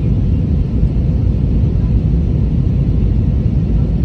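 Airbus A320 in flight heard from inside the cabin: a steady, loud, low rumble of the engines and rushing air, with a faint steady hum.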